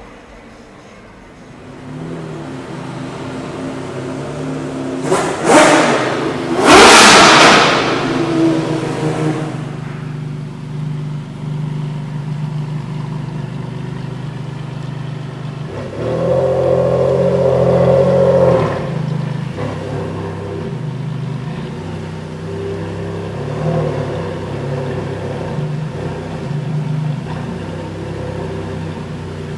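Ferrari Enzo's V12 engine idling, with two sharp, loud revs about five and seven seconds in and a longer held rev about sixteen seconds in.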